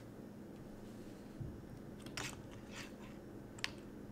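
Faint handling noise from a gaming headset being settled on the head and its boom mic adjusted. There is a soft low thump, a couple of short scratchy rustles, and one sharp click near the end.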